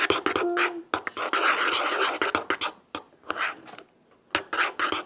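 Glitter-glue slime being stirred as it thickens with boric-acid water: scraping and sticky clicking of the mixture, stopping for over a second about three seconds in, then resuming.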